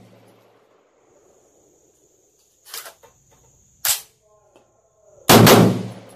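Three gunshots from an AR-15 (5.56/.223), a little over a second apart. The last is the loudest and dies away over most of a second.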